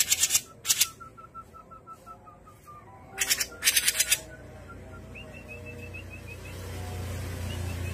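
Cucak jenggot (grey-cheeked bulbul) calling: short harsh rattling chatters at the start, just under a second in, and twice around three to four seconds, with runs of quick, short whistled notes between them. A low rumble builds in the last few seconds.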